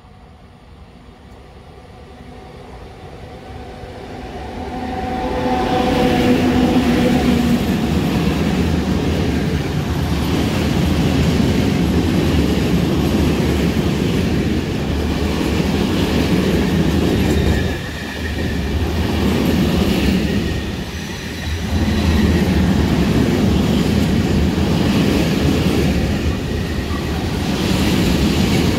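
A freight train hauled by an ET22 electric locomotive approaches, growing steadily louder over the first six seconds or so, then runs past close by. The wagons keep rolling past with a continuous rail rumble and clatter that briefly dips twice about two-thirds of the way through.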